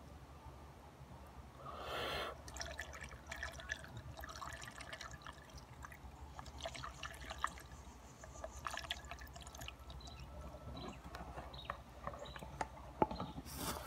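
Coolant trickling from a bottle's spout into a dirt bike's radiator filler neck, with scattered small drips. There is a brief louder rush of liquid about two seconds in.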